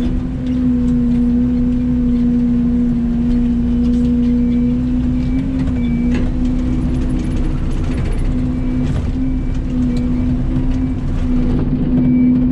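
Mini excavator's diesel engine running steadily under work, with a few faint knocks from the machine.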